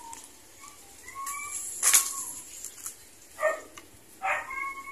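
Birds chirping in short separate calls, with a sharp click about two seconds in and two short, pitched animal yelps in the last second and a half.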